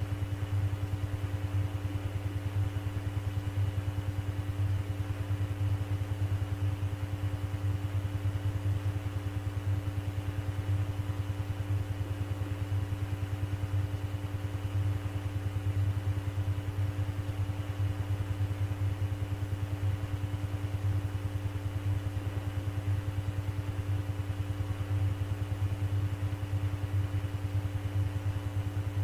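Steady electrical hum and buzz on a recorded air traffic control radio channel between transmissions: a low hum with a steady higher tone above it and a fast, even flutter.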